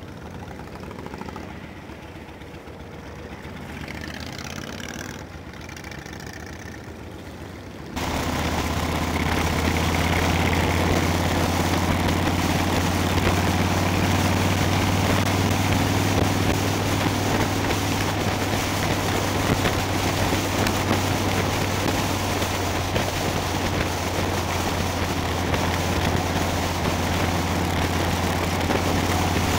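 Motorcycle riding noise: for about eight seconds a quieter engine at low speed, then a sudden jump to loud, steady wind rush on the microphone over the engine's low, even drone while cruising at road speed.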